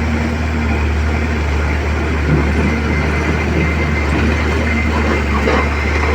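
Excavator's diesel engine running steadily at working speed, a constant low hum with a dense mechanical rumble over it.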